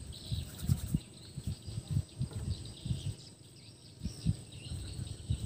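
Outdoor ambience with faint bird and insect chirps and a steady high insect whine, over irregular low thumps and rumbles, several a second.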